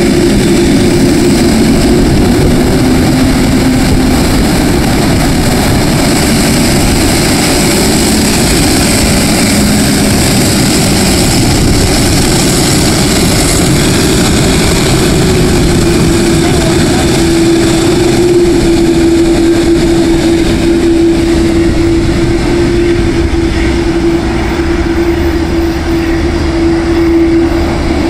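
Boeing 787-8 airliner's jet engines at takeoff power as it rolls down the runway: a loud, steady jet roar with a steady tone running through it.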